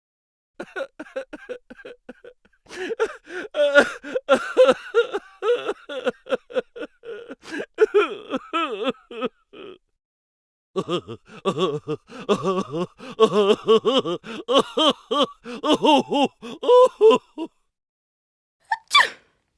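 Comic voice sound effect: fast, high-pitched vocal bursts in two long runs separated by a short pause. A brief rising sweep comes near the end.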